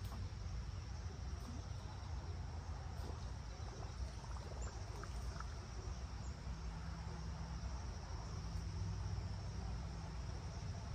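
Steady high insect chirring, with low wind rumble on the microphone under it and a few faint ticks.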